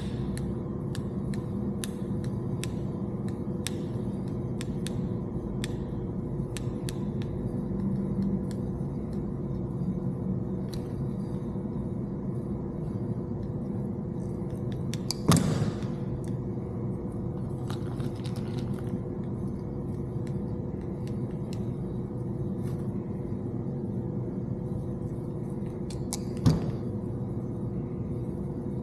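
Small sharp clicks of hand-tool work on wiring, splicing and crimping a radio harness, over a steady low mechanical hum. Two louder snaps come about halfway through and again near the end.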